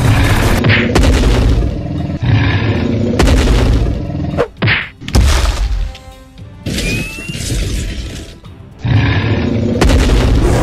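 Dramatic background music with added fight sound effects: a string of heavy booms and crashes, with a falling whoosh near the middle.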